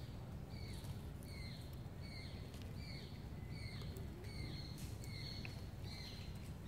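A bird calls a short, high, falling note over and over, about twice a second, over a steady low rumble of outdoor background noise.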